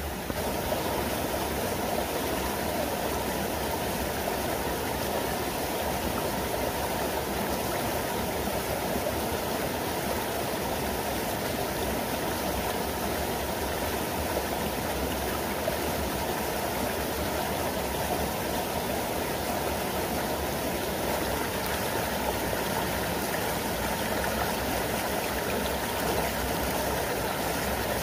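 Small jungle waterfall and stream rushing steadily over rocks into a pool.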